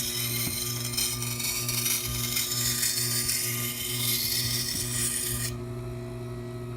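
Steel edge of a leather round knife grinding against a turning wet sharpening stone wheel, a rough steady scraping over the motor's hum, raising a burr along the edge. The grinding stops about five and a half seconds in, leaving the wheel's motor humming.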